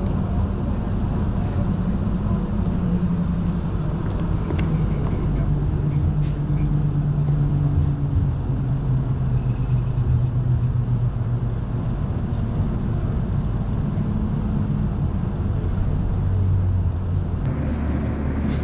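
Tram running along its track, heard from inside the car: a steady low rumble with a motor hum that slowly shifts in pitch as the tram changes speed.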